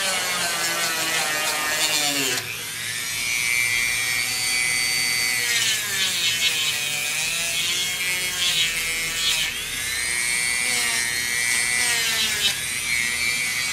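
Dremel rotary tool with a small bit running at a high whine as it grinds the sharp edge of a leather belt slot smooth, its pitch sagging and recovering several times as the bit bears on the leather.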